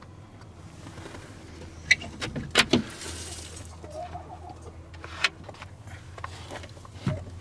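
Several sharp knocks and clicks, the loudest a cluster about two and a half seconds in, over a low steady hum, with a short faint wavering call about four seconds in.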